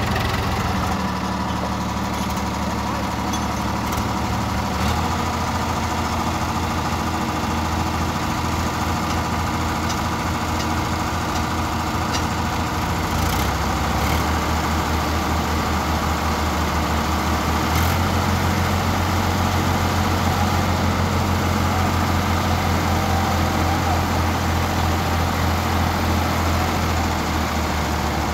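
Diesel engines of two Sonalika tractors running, the engine note shifting a few times as the hydraulic tipping trolleys are raised to dump their loads.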